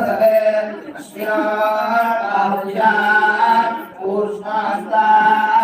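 Male voices chanting together in long, melodic phrases, unaccompanied devotional chanting over a steady low drone.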